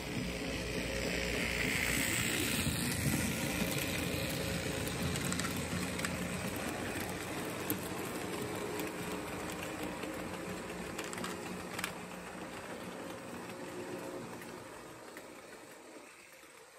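Märklin HO model freight train of red hopper wagons rolling past on metal track: a steady rumble and clatter of the wheels with a low motor hum. It builds quickly, is loudest in the first few seconds and fades away near the end, with a couple of sharp clicks along the way.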